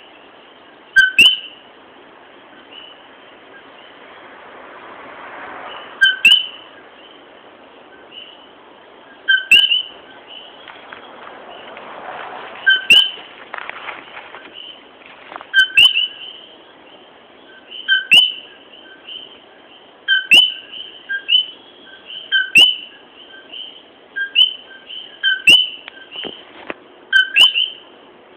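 Common coquí frog calling its two-note "co-kee" over and over, a loud nearby call every two to three seconds. A steady background chorus runs underneath it.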